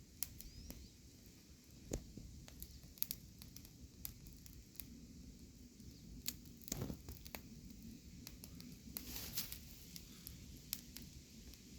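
Log campfire crackling: irregular sharp pops and snaps from the burning wood, with a brief hiss about nine seconds in.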